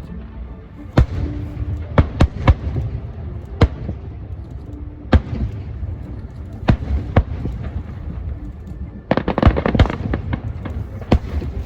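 Aerial fireworks bursting: single sharp bangs every second or so, then a rapid, dense run of crackling bangs about nine seconds in.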